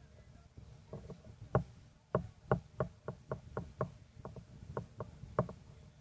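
A run of about a dozen sharp knocks or taps, a few a second and unevenly spaced, starting about a second and a half in.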